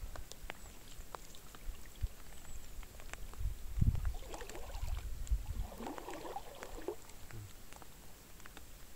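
Canoe being paddled: paddle strokes with water splashing and dripping, with scattered light clicks and a low rumble about four seconds in.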